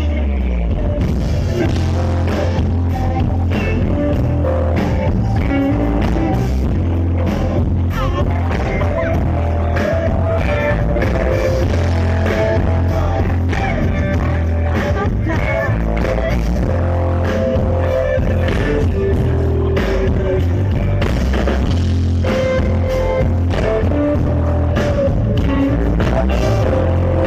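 Live rock band playing, with a sung vocal over guitar and heavy bass.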